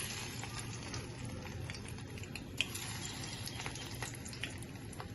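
Hot oil in a pan sizzling and crackling as murmura (puffed-rice and potato) cutlets go in to fry, with many small irregular pops and one sharper crackle about two and a half seconds in.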